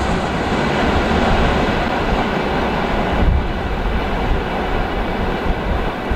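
Freight train rolling past on the rails, a loud steady rumble and rattle of wheels and wagons, with a brief heavier low thud about three seconds in.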